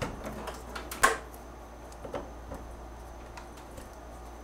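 A router's power cord being handled and plugged in: light rustling and small clicks, with one sharp click about a second in and a smaller one a second later. The router motor does not run.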